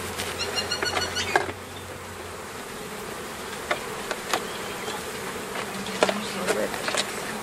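Honeybees buzzing around a crowded hive entrance in a steady hum, with a few light knocks and clicks scattered through.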